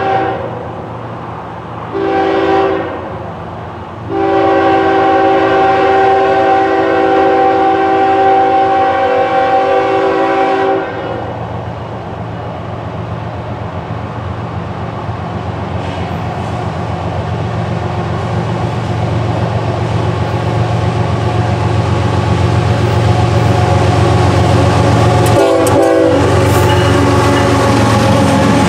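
CSX diesel freight locomotive's multi-chime air horn: the tail of one blast, a short blast about two seconds in, then a long blast of about six seconds, the closing short-long of a grade-crossing signal. After the horn stops, the diesel engines' rumble rises steadily as the locomotives approach and pass close by.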